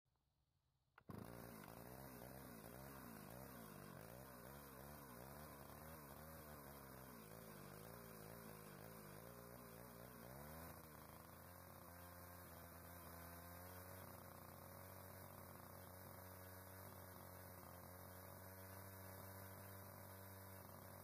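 Near silence: a faint hum that wavers in pitch for about the first ten seconds, then holds steady.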